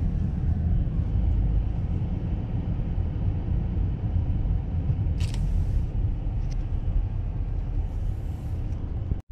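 Car driving through town streets: a steady low rumble of engine and tyres, with two brief hisses about five and eight seconds in.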